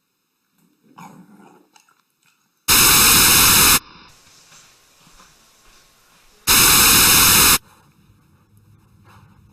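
Two loud bursts of harsh static-like noise, each about a second long and about four seconds apart, after a fainter short sound about a second in.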